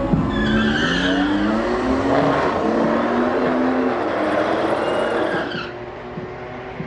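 Dodge Challenger SRT Hellcat's supercharged V8 revving hard through a burnout, rear tyres squealing; the squeal and revs cut off at once near the end, leaving the engine running lower.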